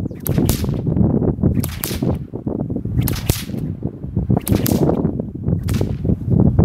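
A whip cracking about five times, roughly one sharp crack every second and a half, as the cracks of a fast figure eight follow one another.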